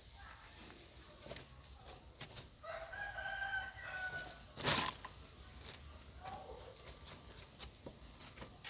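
A rooster crowing once, a single held call of about a second and a half that dips slightly at its end, about three seconds in. A short sharp thump follows about a second later, with small clicks and rustles throughout.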